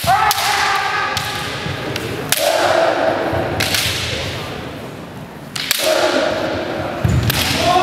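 Bamboo shinai cracking against kendo armour several times, each strike followed by a long, drawn-out kiai shout.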